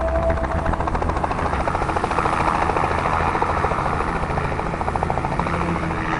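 Helicopter running steadily, its rotor giving a rapid, even chop over a low rumble.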